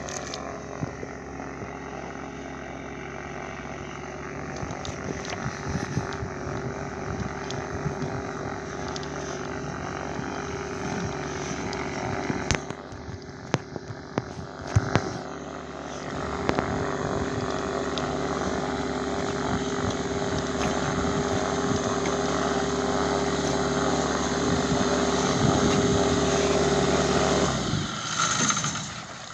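Kitfox IV floatplane's engine and propeller running steadily at taxi power, growing louder as it nears, with a couple of sharp knocks midway. About a second and a half before the end the engine note drops away as the engine is shut down.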